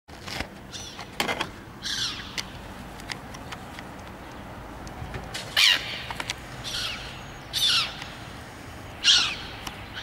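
Gulls calling in flight: a series of about seven short cries, the loudest in the middle and near the end. A sharp knock about a second in.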